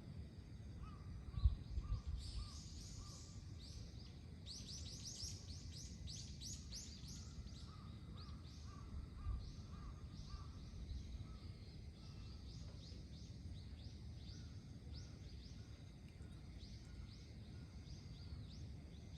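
Flock of starlings calling: rapid runs of high, downward-sweeping notes that start just after a low thump about a second and a half in, with quieter repeated lower notes among them. Low rumbling background noise throughout.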